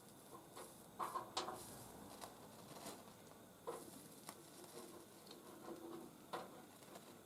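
Soldering on a copper lamp-post top: faint, scattered small clicks and crackles, a quick cluster about a second in and single ones spread through the rest, over a low hiss.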